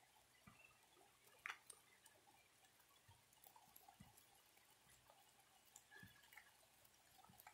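Near silence, with a few faint scattered ticks.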